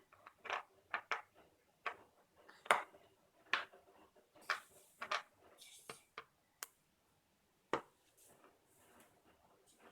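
Light clicks and taps of plastic Play-Doh toy pieces being handled, irregular and about one a second, with faint soft rubbing between them.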